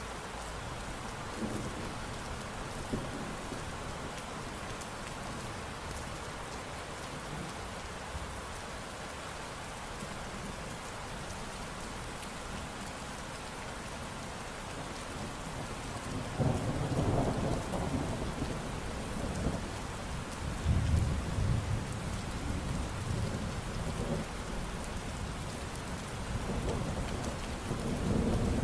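Steady heavy rain falling, with thunder rolling in low and long about halfway through and rumbling again near the end.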